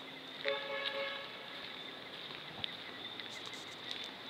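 Steady, high-pitched insect drone in roadside vegetation, with a short pitched call lasting under a second about half a second in.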